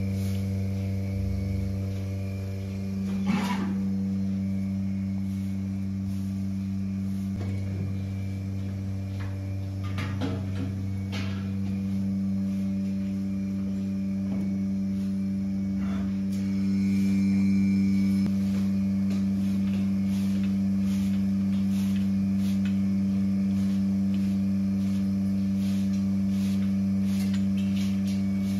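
Steady low electrical hum of barn machinery, with a few brief broom scrapes on the straw-covered floor about three seconds in and again around ten to eleven seconds.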